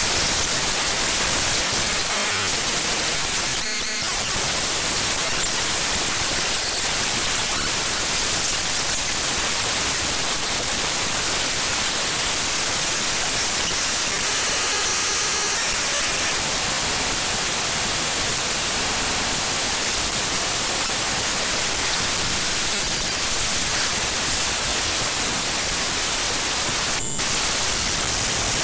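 The program file audacity.exe (Audacity 1.3 Beta) played back as raw audio data: loud, harsh static-like noise, steady in level. Brief buzzy, tone-laden patches break through about four seconds in, around the middle, and near the end.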